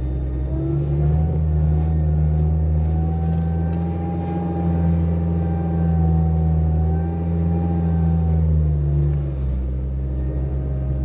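A 4x4's engine revs up, holds at steady high revs for about eight seconds while the vehicle strains to climb loose sand, then drops back near the end.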